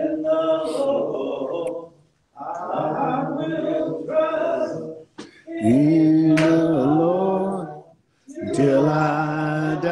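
A man singing unaccompanied into a microphone, in four long held phrases with short breathing pauses between them.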